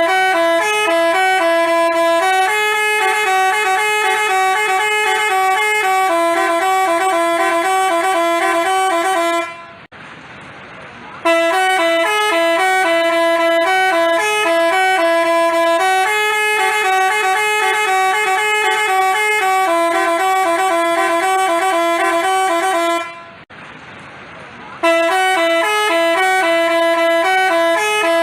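Telolet basuri musical horn playing a tune in stepped notes, breaking off twice for under two seconds each time.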